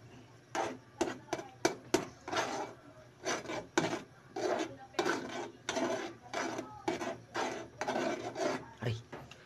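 Spoon scraping and stirring ramen noodles in an aluminium pot: a few sharp clicks in the first two seconds, then a run of scrapes about twice a second.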